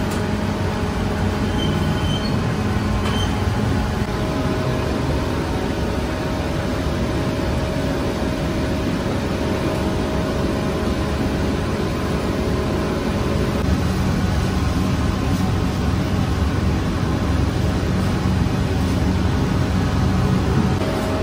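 Steady drone of running bakery machinery: a low, even hum with a noisy rush over it, unbroken throughout.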